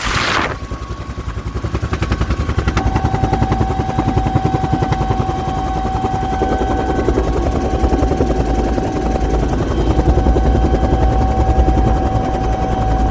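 Bell 212 helicopter running, its two-bladed main rotor beating rapidly and steadily under a high turbine whine that sets in about three seconds in. A loud rushing noise cuts off about half a second in.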